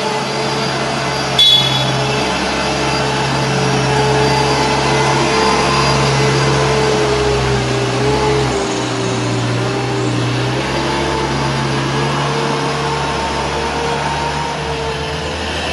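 Combilift C-series multi-directional forklift running, a steady machine hum and whine that drifts slightly in pitch as it moves. A single sharp click sounds about a second and a half in.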